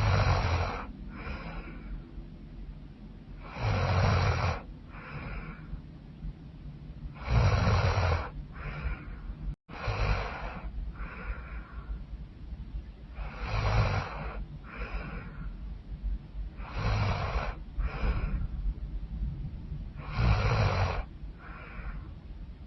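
A woman snoring loudly in a steady rhythm: seven snores about every three and a half seconds, each followed by a shorter, softer second sound.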